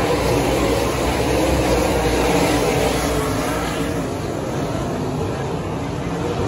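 USRA dirt-track modified race cars' V8 engines running on the oval, a steady engine drone that eases a little about four seconds in.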